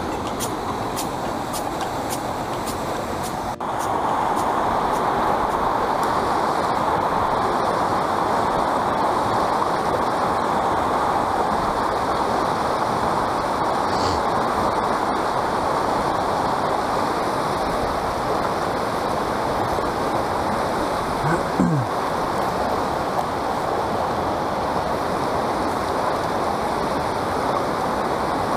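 Steady rush of a small river's water tumbling over rocks, close to the microphone; it grows louder about three and a half seconds in. Faint regular ticking is heard in the first few seconds, and a brief low falling sound breaks in about two-thirds of the way through.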